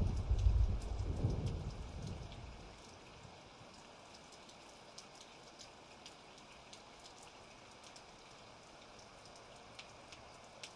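A roll of thunder rumbles and dies away over the first few seconds, leaving light rain with scattered drips and patters.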